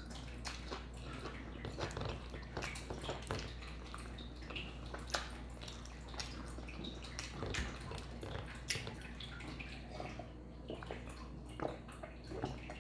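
Close-up chewing of a fried chicken sandwich: many small wet mouth clicks and soft crackles, scattered irregularly.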